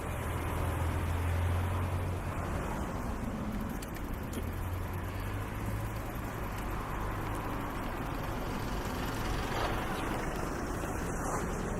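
Street ambience with a motor vehicle's low engine rumble, strongest in the first couple of seconds, over steady traffic noise.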